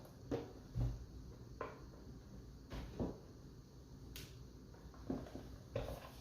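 Scattered light knocks and clicks of plastic Play-Doh playset pieces being handled, about seven in all, with a dull thump about a second in and a sharp click a little past the middle.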